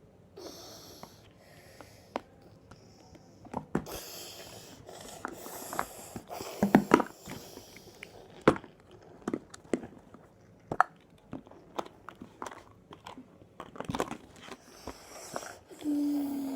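Irregular clicks, knocks and rustles close to the microphone, with breath noise, the loudest knocks a little past the middle. A low steady hum starts just before the end.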